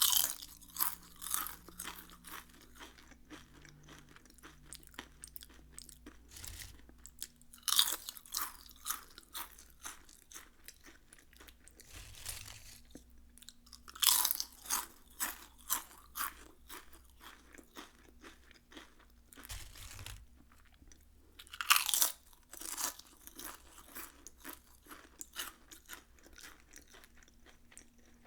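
Close-up of Lay's potato chips being bitten and chewed: four loud crisp bites, each followed by a run of crunchy chewing that fades before the next bite.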